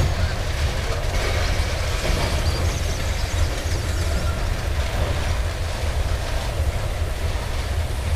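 Loaded covered hopper cars of a freight train rolling past: a steady rumble of steel wheels on the rails.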